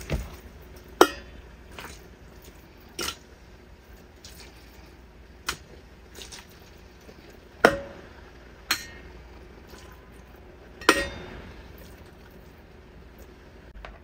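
Scattered clinks and knocks as handfuls of puppy mush are scooped by hand and dropped into a stainless steel puppy feeder bowl, about seven in all, a few with a short metallic ring after them.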